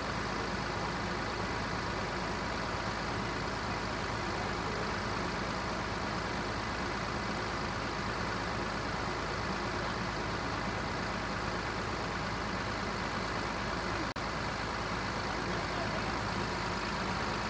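An engine running steadily without change, with a brief dropout in the sound about fourteen seconds in.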